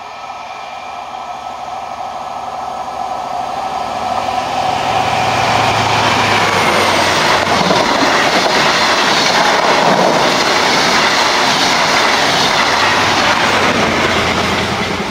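A train passing close by on the line, building up over a few seconds, loud for most of the time, then beginning to fade near the end.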